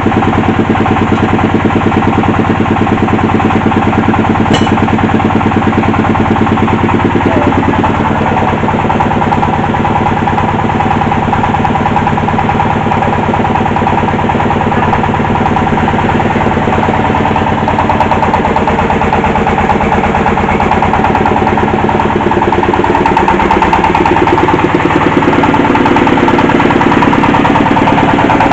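Engine driving a hydraulic well-drilling rig, running steadily, its note shifting about eight seconds in.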